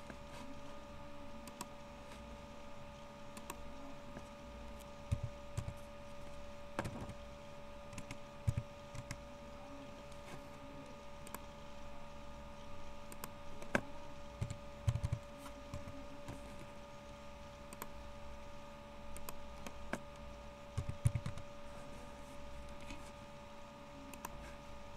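Scattered computer keyboard and mouse clicks, including text being typed, over a steady hum, with a few soft low thumps.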